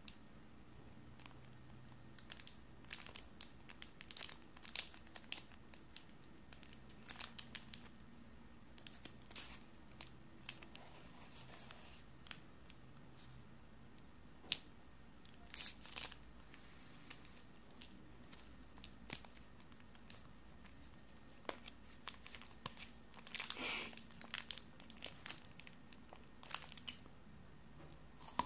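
The plastic wrapper of a Nestlé Munch chocolate wafer bar crinkles and tears as it is picked at and ripped open, in short irregular crackles. The longest, loudest stretch of crackling comes a few seconds before the end.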